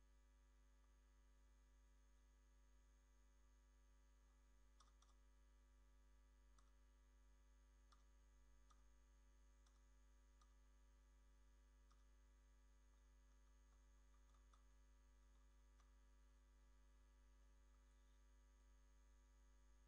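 Near silence: a steady faint electrical hum with about a dozen faint, scattered clicks, computer keyboard keys pressed as text in a title field is deleted and retyped.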